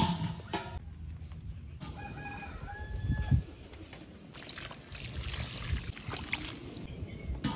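A rooster crows once, a drawn-out pitched call about two seconds in. A brief sharp sound comes at the very start, and later water is poured into a wide aluminium cooking pan.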